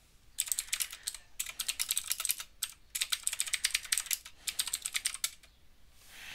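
Typing on a computer keyboard: several quick runs of keystrokes separated by short pauses, stopping near the end.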